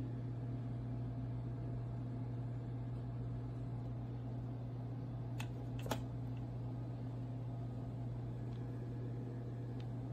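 A steady low mechanical hum, with a few sharp clicks just before six seconds in.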